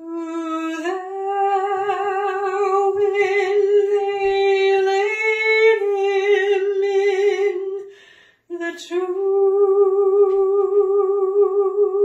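A woman's solo voice singing long held notes with vibrato, recorded on a phone in a small bathroom. The singing breaks off about two-thirds of the way in, then takes up again on a held note after a brief sharp sound.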